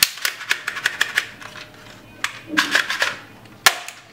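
Plastic toy gun clicking: a quick rattle of sharp clicks in the first second or so, another short cluster near three seconds, and one loud snap just before the end.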